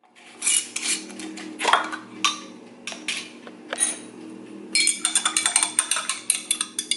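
Kitchen dishes and utensils clattering in irregular knocks and clinks, then a quick run of rapid clinks from about five seconds in, over a faint steady hum.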